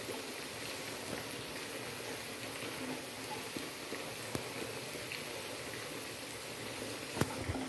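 Chicken and onions sizzling steadily in a frying pan while blended tomato is poured over them, with a light knock near the end.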